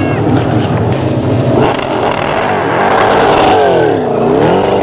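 NASCAR Whelen Euro Series stock car's V8 engine revving hard as the car slides off the track onto the grass, its wheels tearing up turf. The revs drop sharply about four seconds in, then climb again.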